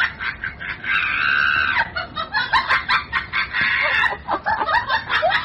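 A fast run of short, squawking bird-like calls, with one longer held call about a second in.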